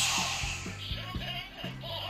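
DX A.I.M.S. Shot Riser toy pistol playing its electronic standby tune through its small speaker, a looping tune with a steady beat and bass line; a hiss opens it and fades within the first second.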